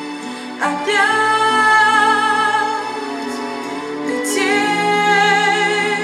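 A woman sings a slow pop ballad into a microphone over backing music, holding long notes. She moves to a new note about half a second in and again about four seconds in.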